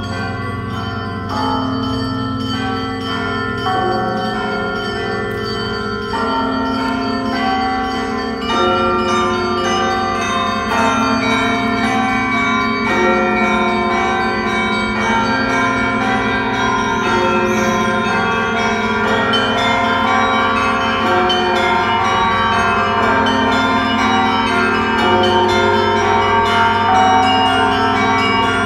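Church bells of St Michael's Golden-Domed Cathedral chiming a peal: many bells struck one after another in overlapping succession, their tones ringing on together. The peal grows a little louder about eight seconds in.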